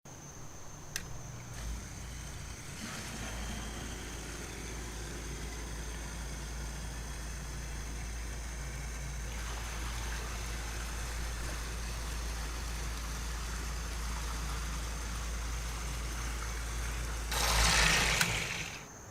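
A new cast-iron and stainless-steel submersible sump pump running on a pump test: a steady low motor hum with rushing water. Near the end comes a louder splashing rush for about a second, then the hum stops.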